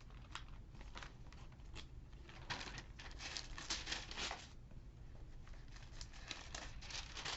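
Thin Bible pages being leafed through, rustling and crinkling in two spells: from about two and a half to four and a half seconds in, and again from about six seconds in.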